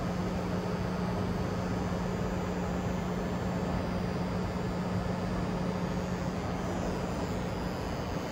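Steady rushing background noise with a constant low hum, unchanging throughout, like a building's air handling or machinery in a large hall.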